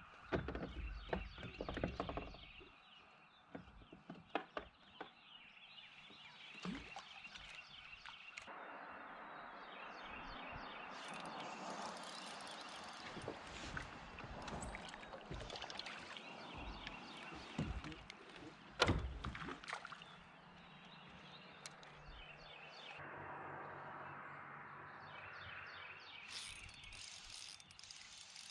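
Fishing reel and rod handled from a kayak: a cluster of knocks and clatter at the start, then a long stretch of steady whirring and fine ticking as line is reeled in. A single sharp knock comes a little past the middle.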